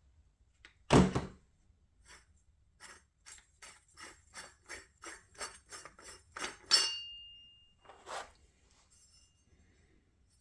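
Metal parts of an AR-15-type rifle being handled: a thunk, then a quick series of about a dozen regular clicks, roughly three a second, ending in a sharp metallic clank that rings briefly.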